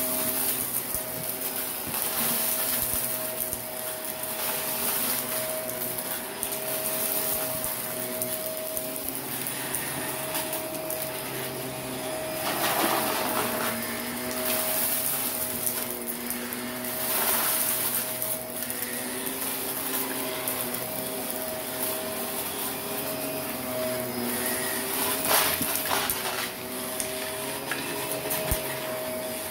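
Shark Navigator upright vacuum running with its brush roll pushed over carpet strewn with fine, crunchy dirt: a steady motor hum and airflow hiss. It surges into louder crunchy rattles a few times as grit is sucked up.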